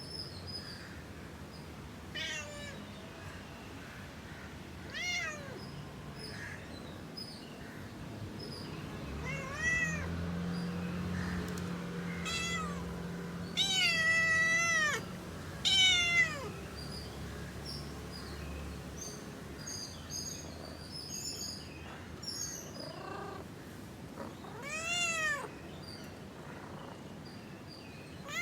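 Cat meowing, about eight separate calls that rise and fall in pitch and are spread out with pauses between them; the longest and loudest come about halfway through. A low steady hum sits under the middle calls.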